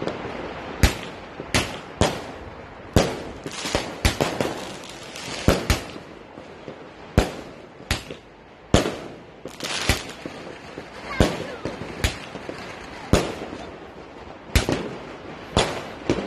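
Aerial fireworks going off: a string of sharp bangs at irregular intervals, roughly one a second, with stretches of rapid crackling between some of them.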